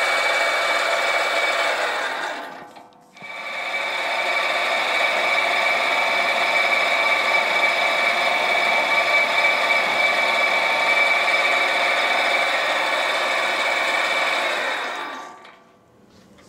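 Sieg SC4 bench lathe running steadily with a motor and gear whine as it faces and then centre drills a mild steel bar. The sound fades out and back in about three seconds in, and fades away near the end.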